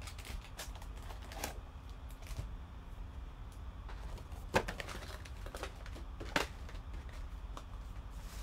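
Foil-wrapped trading card packs being handled and stacked on a table: a string of light crinkles and ticks, with two sharper clicks a little past halfway and about three-quarters through.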